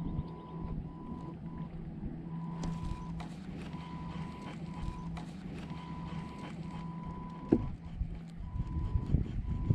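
A small electric motor humming steadily, with a high whine that cuts in and out at short intervals; the hum stops about eight seconds in. A few light knocks come in between.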